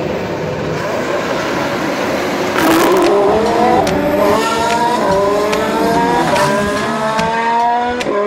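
Formula One car's V6 turbo-hybrid engine accelerating: after a rushing noise, its note climbs in pitch about a third of the way in, drops back briefly with each gear change and climbs again.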